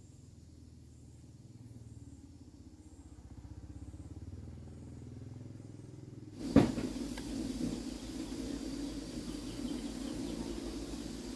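A motor running with a low rhythmic rumble. About six and a half seconds in there is a sharp knock, after which it runs louder with a steady hum and hiss.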